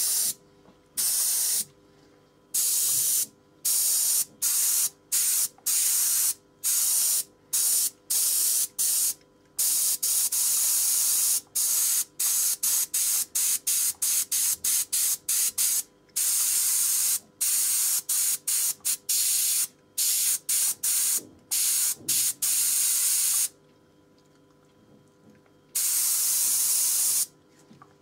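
Airbrush spraying paint: a loud hiss of air broken into many short bursts as the trigger is pressed and released, with a pause of about two seconds near the end.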